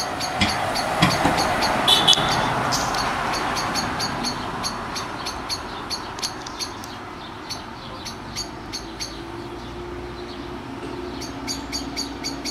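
Passing traffic noise that swells over the first few seconds and slowly fades, over a steady run of short, high chirps at about three a second.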